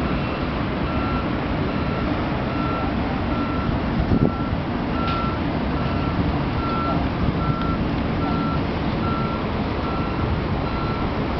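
An electronic reversing alarm beeping steadily at one pitch, about twice a second, over a steady rush of wind and distant city noise. There is a brief bump about four seconds in.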